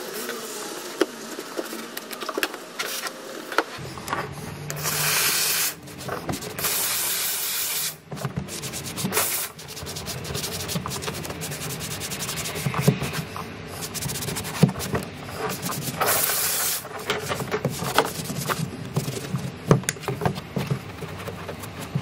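A cloth rubbing and scrubbing over a car's fabric headliner and plastic sun visor, with three loud bursts of hissing steam from a steam cleaner, about four seconds in, just after and around sixteen seconds.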